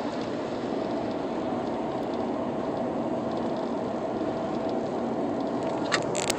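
Steady road and wind noise inside a Lexus sedan's cabin cruising at highway speed, with a faint steady hum. Two sharp clicks near the end.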